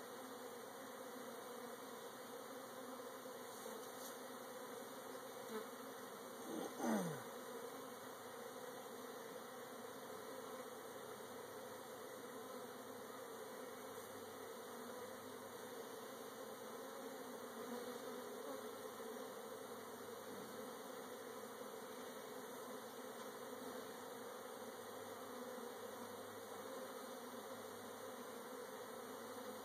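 Honey bees buzzing steadily around a hive just stocked with a cutout colony. About seven seconds in there is one brief louder sound that falls steeply in pitch.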